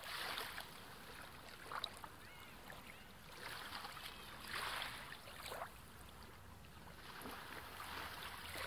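Faint water sound effect for an underwater scene: a soft hiss of waves that swells and fades about three times, with a few small bubbly chirps.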